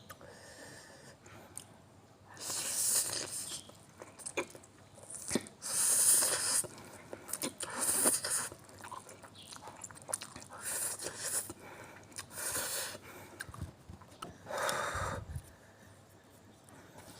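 A person eating spicy noodles close to the microphone: about six noisy bursts of slurping and chewing, a second or two apart.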